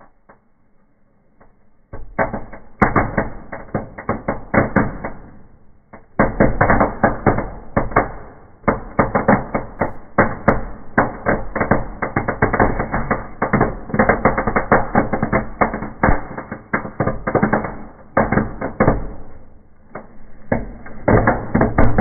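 Fireworks going off inside a wood-burning fireplace: after a quiet first two seconds, a dense, rapid string of bangs and crackles begins, many per second. It carries on with brief lulls about six seconds in and again near the end.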